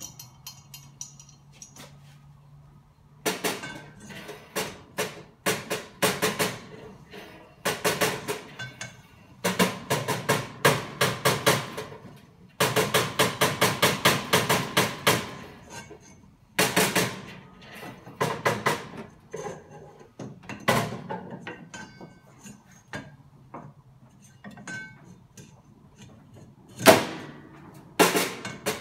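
A hammer striking the main drive pulley of a stainless steel mat washer again and again, in quick runs of blows with short pauses, the metal ringing after each hit. Starting about three seconds in, the blows are driving off a pulley stuck tight on its shaft, worked off without a puller.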